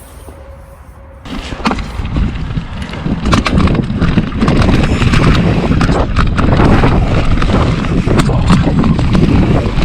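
Scott Ransom 900 enduro mountain bike ridden hard down a trail: tyres rumbling over rough ground, with rattles and sharp knocks from the bike and wind buffeting the microphone. Quiet at first, it grows loud a little over a second in as speed picks up.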